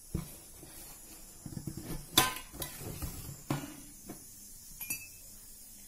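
Stainless steel container lid being worked loose and lifted off: a few clicks and a quick rattle of taps, then a sharp metallic clink with a short ring about two seconds in, more knocks, and a brief ringing clink near the end.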